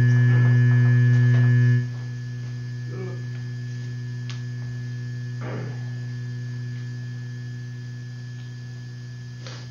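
Steady low electrical hum with a few higher overtones. It is loud for the first couple of seconds, then drops abruptly to a lower level and carries on, easing off slightly toward the end. A few faint clicks and rustles sit over it.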